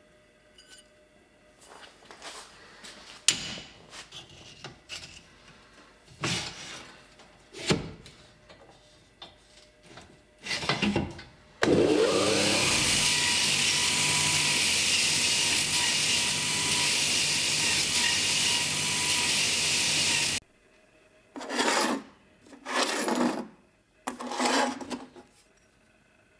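Workshop handling with scattered knocks and scrapes, then a power tool runs steadily for about eight seconds and cuts off sharply, followed by three short bursts of noise.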